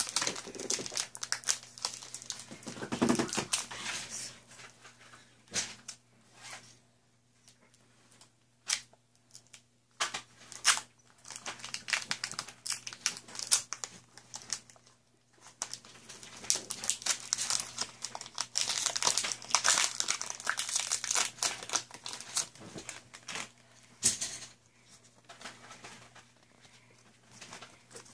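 Foil Pokémon trading-card booster pack wrappers crinkling and tearing as they are opened by hand, in irregular spells of sharp crackling with short quiet gaps.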